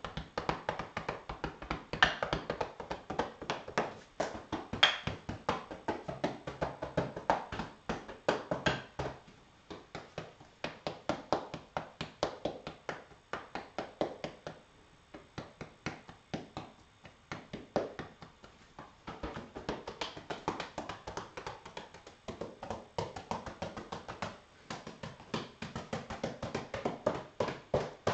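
Two short wooden sticks tapped rapidly against the body through a cotton gi, several sharp strikes a second with a few brief pauses: a percussive self-massage aimed at the fleshy parts rather than the bones.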